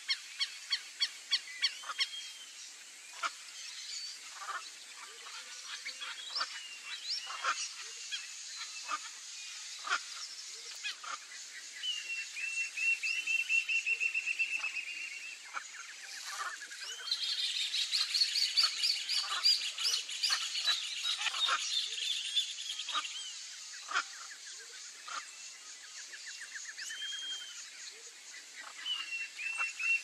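Several birds calling, a mix of sharp, harsh single calls and rapid trilled series of notes, with the calling busiest in the middle stretch.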